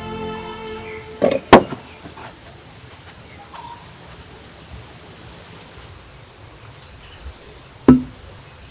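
Glass bottles and a jar knocked down onto a wooden shelf and a counter: two sharp knocks about a second and a half in, quiet room tone, then one more knock near the end.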